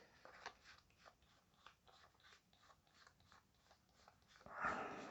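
Pokémon trading cards being handled and sorted: faint light taps and clicks, then a louder rustle about four and a half seconds in.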